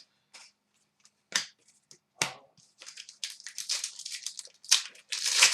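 Trading card packs being opened and handled: wrappers crinkling and tearing, with a few short crackles early on and denser crinkling in the second half.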